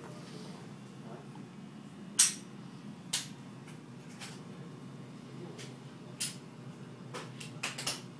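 A few sharp clicks and light knocks, the loudest about two seconds in and a quick run of them near the end, over a steady low murmur of room noise.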